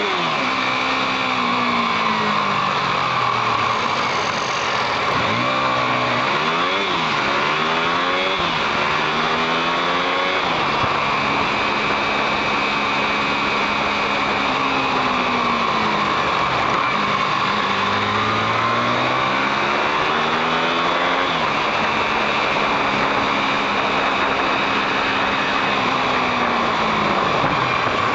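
Motorcycle engine heard from the rider's seat, accelerating in stepped rises with drops between them as it shifts up through the gears, settling to a steady cruise, easing off, then pulling up through the gears again, over a constant rush of wind and road noise.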